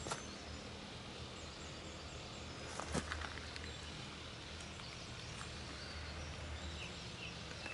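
Steady outdoor background noise with a low hum, broken by a single sharp knock about three seconds in.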